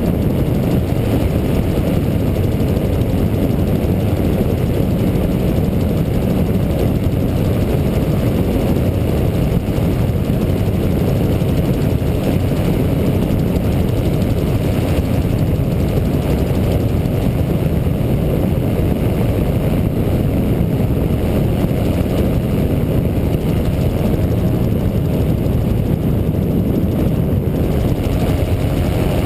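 MT-03 autogyro in steady cruising flight: a constant drone of its pusher engine and propeller, mixed with heavy wind noise in the open cockpit, with no change in power.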